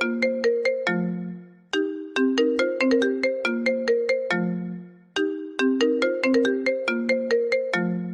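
iPhone ringtone playing on a loop: a short melody of quick notes ending on a low held note, repeating about every three and a half seconds with a brief pause between repeats.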